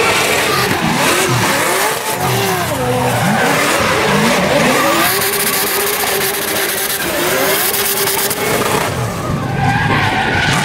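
Drift cars sliding sideways through a corner, their engines revving up and down in quick rising and falling sweeps over a continuous hiss of tyres skidding.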